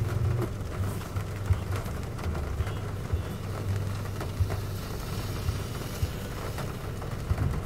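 Steady low hum of a parked car idling, heard from inside the cabin, with occasional faint ticks.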